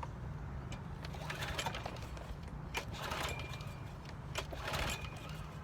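MTD Yard Machines push mower's recoil starter pulled about three times, the engine turning over in short rasping bursts without catching: it won't start without starter fluid.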